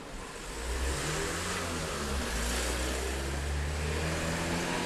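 Pickup truck driving past on a street: engine running with tyre noise, growing louder about half a second in and then holding steady.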